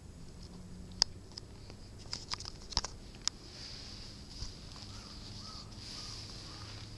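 Sharp clicks and taps from a handheld phone camera being handled as a hand reaches down to stroke a cat on asphalt: one loud click about a second in, then a quick cluster of smaller taps, over a steady faint high hiss.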